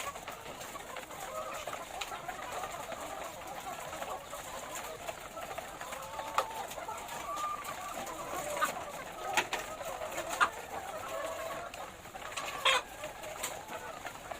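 A flock of laying hens clucking together in a steady overlapping chatter, with a few sharp clicks or knocks in the second half.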